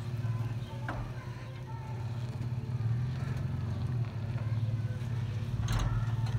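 Pickup truck engine running at low speed while towing a shipping container on pneumatic dolly casters over packed dirt, a steady low hum. A couple of sharp knocks come about a second in and near the end.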